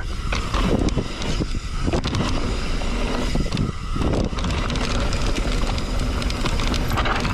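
Mountain bike running fast down a dirt jump trail: wind rushing over the microphone and tyres rumbling on dirt, with a steady run of short rattles and knocks from the bike.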